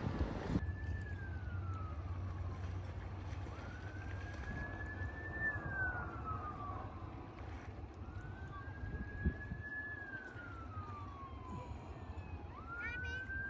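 Siren sounding a slow wail: each cycle rises to a high tone, holds it for a couple of seconds, then slides down, repeating about every four and a half seconds.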